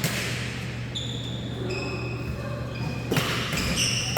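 Badminton play: court shoes squeaking in short high chirps on the floor, with sharp racket-on-shuttlecock hits near the start and about three seconds in, and thudding footsteps.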